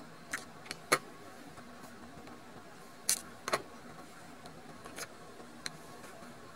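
Seven short clicks and rustles over a faint steady background noise, the loudest about a second in.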